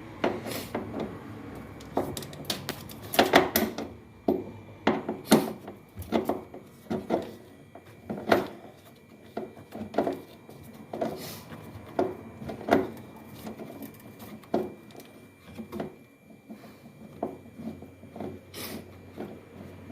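Irregular metallic clicks and knocks of a 10 mm socket wrench working the bolt out of a washing machine's shock absorber.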